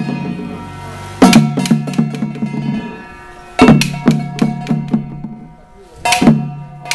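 Traditional temple drumming: a hard stroke about every two and a half seconds, each followed by a quick run of softer beats that die away, with a ringing that hangs on between the strokes.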